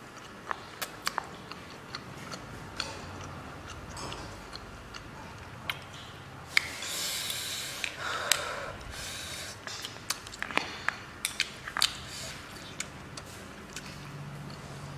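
Close-up eating sounds of instant noodles: many sharp wet smacks and clicks of chewing, with a longer slurp of noodles about seven seconds in.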